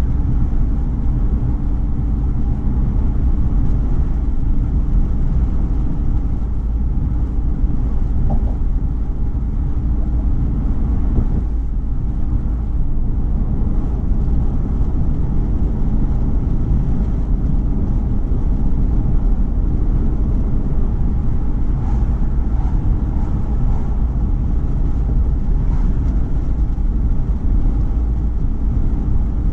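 Steady low road and wind noise of a car cruising at highway speed, unchanging throughout.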